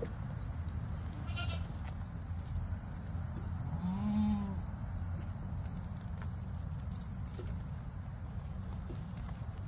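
A goat bleats once about four seconds in: a short call that rises and falls in pitch, over a steady low background noise.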